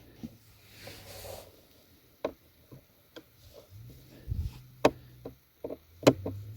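Scattered light clicks and rubbing as a screwdriver turns screws out of a plastic car console lid.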